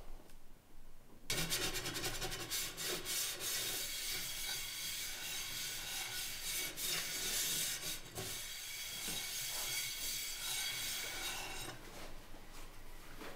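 A rough, rasping scrape made of quick repeated strokes, starting suddenly about a second in and dying down near the end.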